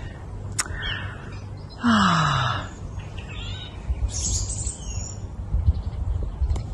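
Songbirds chirping and calling, with short high calls scattered through. A louder, rough sound that drops in pitch comes about two seconds in, over a steady low rumble.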